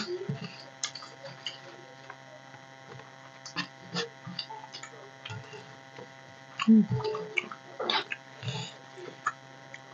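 Close-up eating sounds: fingers mixing rice and curry on steel plates, chewing and mouth smacks, as scattered soft clicks over a steady electrical hum. There is a brief louder cluster of sounds about seven seconds in.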